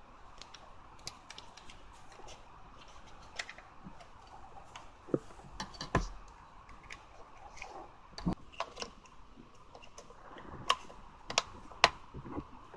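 Irregular small clicks and a few louder plastic knocks from handling a Kyocera Samurai Z2 film camera while its battery cover is turned with a coin and taken off.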